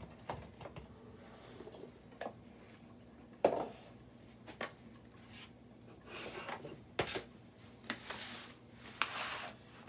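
Scattered kitchen handling noises: light knocks and clicks, with one louder clunk about three and a half seconds in, then rustling and scraping near the end as an aluminium foil pan of chicken is gripped and moved on a wooden counter.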